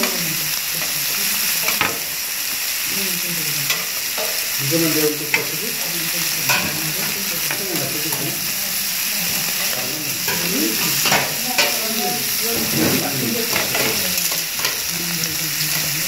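Pork belly sizzling and frying on a large steel griddle, a steady hiss, with metal tongs clicking and scraping against the plate a dozen or so times as the meat is turned.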